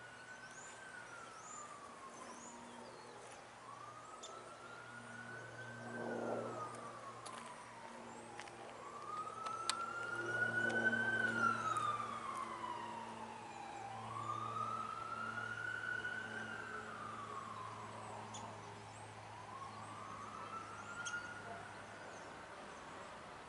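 An emergency vehicle's siren wailing, its pitch rising and falling in slow cycles about every five seconds, loudest around the middle. A low steady hum runs underneath, and a few small bird chirps sound in the first seconds.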